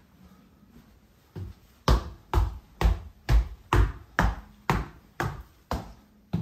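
Footsteps on a hardwood floor and wooden stair treads as someone walks up the stairs: about two heavy thuds a second, starting about a second and a half in.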